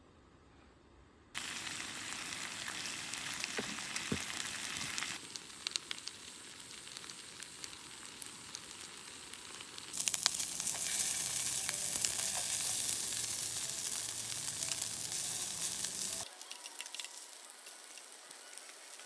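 Food sizzling in a hot pan, a dense hiss with small crackles and pops. It starts abruptly about a second in, and its loudness jumps up and down suddenly a few times.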